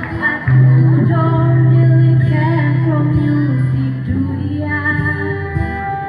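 Teenage girls singing a song together into microphones, backed by a live band of acoustic guitar and bass guitar through amplifiers. A long low note is held from about half a second in until about four seconds.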